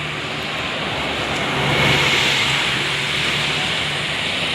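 Road traffic passing: a vehicle's engine drone under tyre and road noise, swelling about two seconds in.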